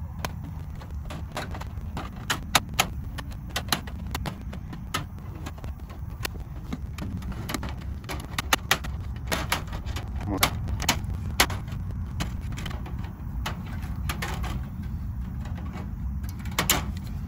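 Aviation snips cutting through galvanized hardware cloth: irregular sharp snips and clicks as the jaws close on the wire mesh, over a steady low rumble.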